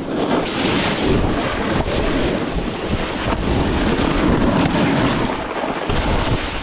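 Wind rushing over the microphone at riding speed, over the hiss and scrape of snowboard edges carving firm groomed snow.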